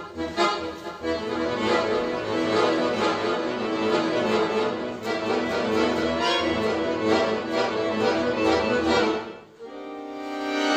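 Solo accordion playing a fast, dense passage of many quick notes over a bass line, then holding a sustained chord without the bass near the end.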